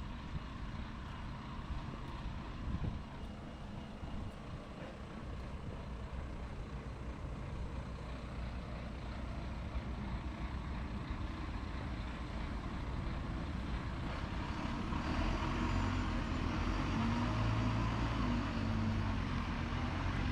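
Heavy road vehicle engine running with a steady low rumble, growing louder with a stronger engine note over the last five seconds.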